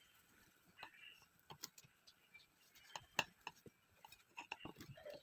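Scattered light clicks and taps of kitchen utensils and dishes being handled, a dozen or so irregular knocks with a sharper one about three seconds in.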